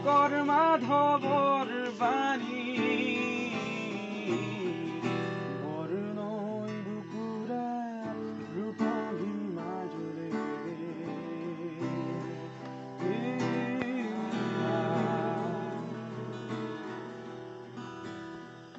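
Acoustic guitar being strummed, with a man singing along to it; the voice is clearest in the first few seconds and again about three-quarters of the way through.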